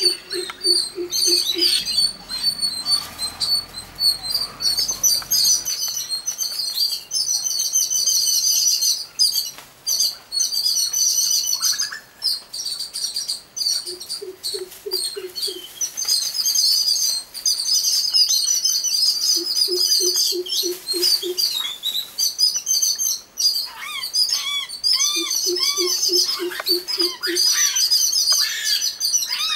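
Garden birds chirping busily and high-pitched throughout. A low call of about six quick notes comes four times, and a run of short rising-and-falling calls sounds near the end.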